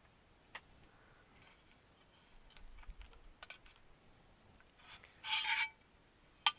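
Model car kit parts, the chassis plates and screws, being handled and fitted together on a work surface: a few light clicks and some soft rubbing, with a short louder scrape a little past five seconds in and a sharp click just after.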